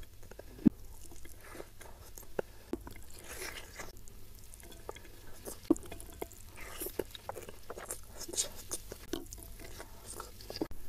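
Close-miked eating: soft chewing and wet mouth smacks with irregular small clicks, as rice with spicy stir-fried salted fish is eaten by hand.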